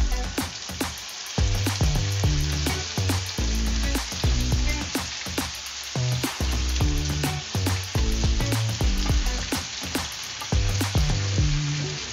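Chunks of baby shark meat sizzling in a hot frying pan as they are slid in from a plate and stirred with a spatula, with short clicks of the spatula against the pan. Background music plays underneath.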